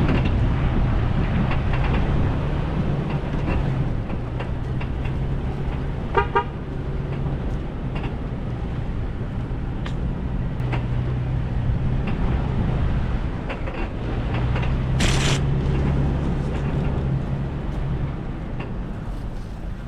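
A vehicle driving, its engine a steady low hum under a rumble of road noise and faint knocks. About six seconds in there is a brief high-pitched toot, and about fifteen seconds in a short hiss.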